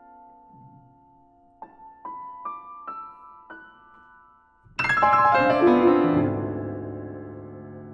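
Grand piano playing solo: a held chord dies away, then five single notes climb one after another. About halfway through, a loud, full chord is struck and rings on, slowly fading.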